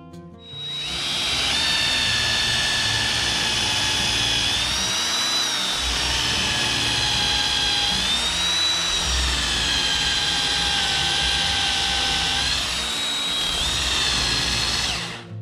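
Cordless drill boring a paddle bit into a hardwood maple benchtop: the motor whines steadily under load, its pitch rising and falling a few times, and stops just before the end.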